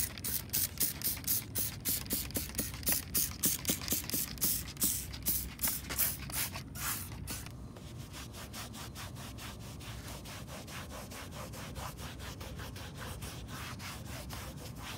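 Microfiber towel rubbed hard back and forth over a car's plastic door panel, wet with all-purpose cleaner, to scrub off old grime. The strokes come quickly, about four a second, and are stronger for the first half before turning lighter.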